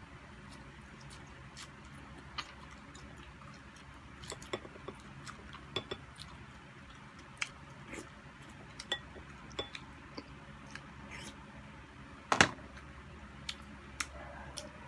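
Eating sounds: scattered short clicks and smacks of two people chewing and eating rice and fish with their hands, with light clinks against glass bowls. The loudest knock comes about twelve seconds in.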